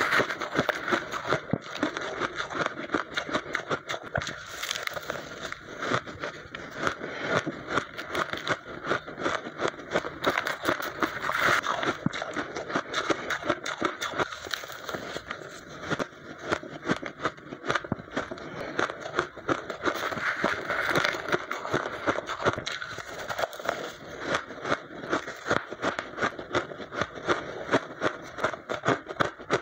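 Close-up crunching of blended (crushed and refrozen) ice being chewed mouthful after mouthful: a rapid, dense crackling that keeps on without a break.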